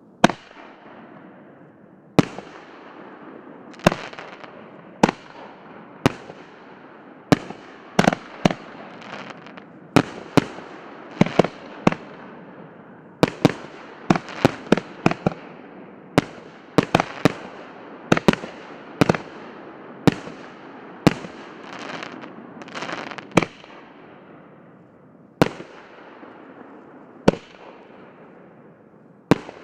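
A 25-shot 2.75-inch consumer fireworks battery firing aerial shells: a string of sharp bangs, one every second or two, coming faster and overlapping through the middle. A noisy sizzle of burning stars fills the gaps between the bangs.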